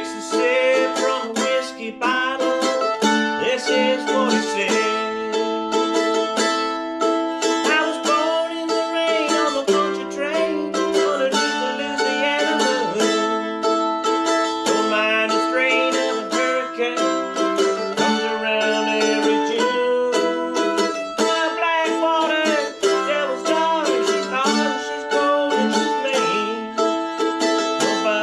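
Solo mandolin playing a quick picked melody, note after note in a dense run with chords ringing underneath.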